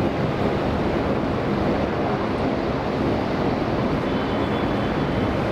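Steady low roar of distant jet aircraft engines across an airfield, even throughout, with a faint high steady tone joining near the end.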